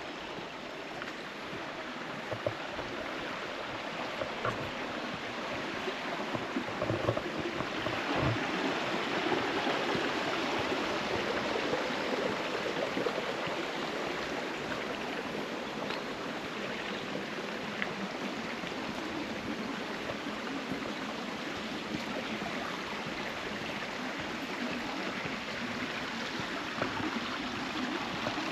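Clear mountain stream running over rocks, a steady rushing and babbling that grows a little louder about eight seconds in. A few faint knocks come in the first third.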